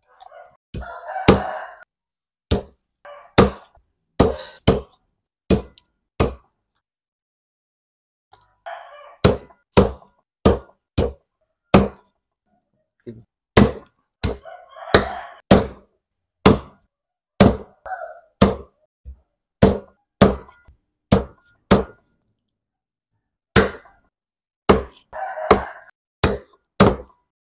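Meat cleaver chopping a whole chicken through the bone on a round wooden chopping block: sharp single chops, one or two a second, in runs with short pauses. A rooster crows several times in the background.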